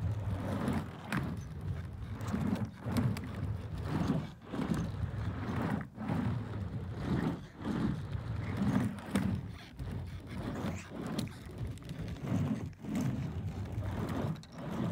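Skateboard wheels rolling back and forth on a plywood mini half-pipe: a low rumble that swells and fades with each pass across the ramp, with sharp clacks among the passes.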